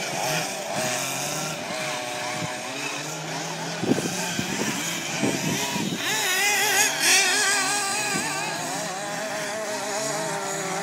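Several small combustion engines of radio-controlled off-road cars lapping a dirt track, their buzzing pitch rising and falling as they rev and back off through the turns. A few short knocks come around the middle.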